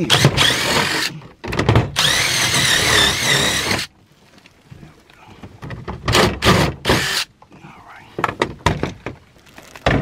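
Cordless drill driving screws to mount an HVAC zone control board, running in several bursts. The longest burst lasts about two seconds, and the motor's pitch wavers as the screw goes in.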